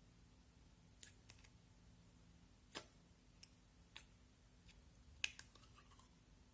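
Putty slime worked by hand, giving faint, irregular pops and clicks, about eight in all, the sharpest about five seconds in.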